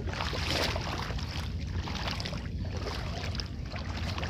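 Wind rumbling on the microphone over the steady wash of the sea.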